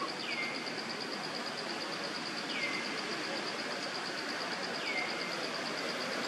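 Forest ambience: a steady, fast-pulsing high insect trill over an even hiss, with a short bird call sweeping down in pitch repeated three times, about every two and a half seconds.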